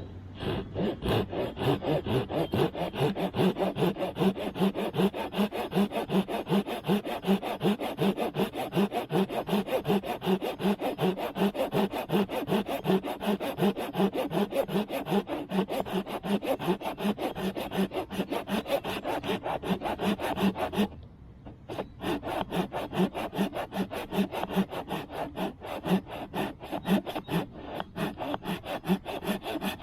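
Kerye mini folding pull saw cutting wet wood with its fine-toothed side, in fast, even back-and-forth rasping strokes, roughly two to three a second. The sawing stops for a moment about two-thirds of the way through, then carries on.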